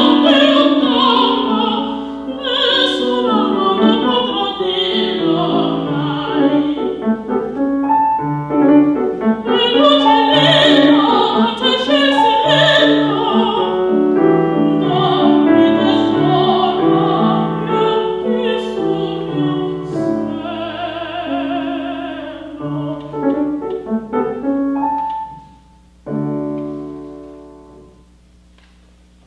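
A female classical singer singing an operatic art song with vibrato, accompanied by grand piano. The voice ends about 25 seconds in, and the piano plays a closing chord that fades away, ending the piece.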